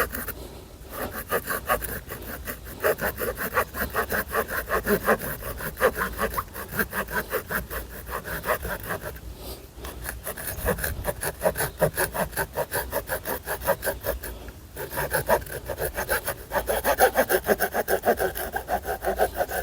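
Victorinox RangerGrip pocket-knife saw blade, which cuts on the pull stroke, sawing a thin stick of wood in quick, even back-and-forth strokes of about three a second. There are two short pauses, about halfway and about three-quarters of the way through.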